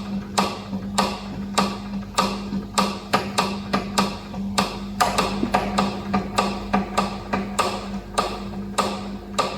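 Bespacker FR-880 continuous band sealer running with a steady motor hum and a rhythmic clicking knock about two to three times a second. This is the abnormal noise of its drive sleeve set off-centre on the shaft, so that the sleeve strikes or scrapes the shaft.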